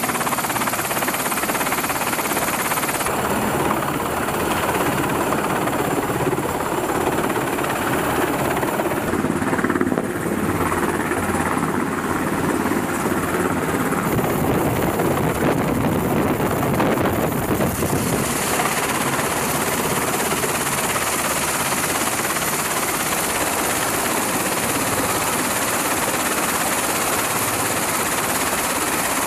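Helicopter running, a steady, loud mix of rotor and engine noise with a thin high whine on top. The sound changes abruptly about three seconds in, when the whine drops out, and again around eighteen seconds, when it returns.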